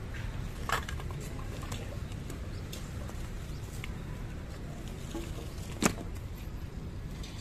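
Engine running steadily at a low rumble, with a light clack under a second in and a sharp knock about six seconds in.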